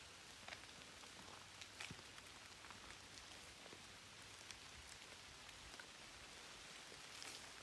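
Faint steady rain, an even hiss with scattered individual drops ticking sharply.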